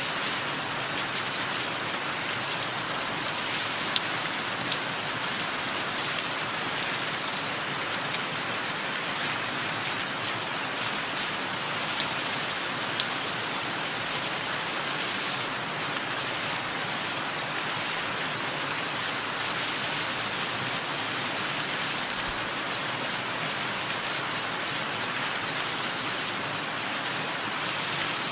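Steady rain with birds chirping over it: short, high chirps in quick pairs or small clusters, coming every few seconds.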